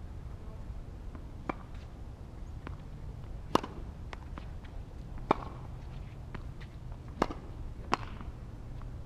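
Tennis balls being hit in a rally on a hard court: sharp pops of racket strings on the ball and the ball bouncing off the court, four loud ones and several fainter ones, irregularly spaced, over a steady low rumble.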